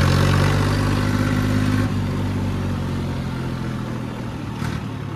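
Tractor diesel engine running with a steady drone, which drops away abruptly about two seconds in, leaving fainter engine and rumbling noise.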